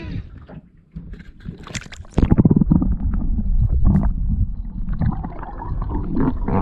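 Boat underway on the water: a loud low rumble with water noise, starting suddenly about two seconds in.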